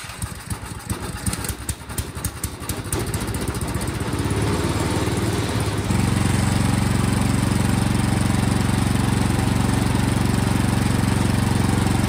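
Toro Power Max snowblower's single-cylinder OHV engine running just after starting. It is uneven for the first few seconds, then settles into a steady, louder run about six seconds in. It now runs with its carburetor float-bowl seal reseated, the gap that had been leaking fuel closed.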